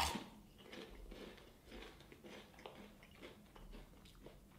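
A Pringles potato chip snapping in a single sharp bite, then faint, steady chewing of the crisp, a couple of chews a second.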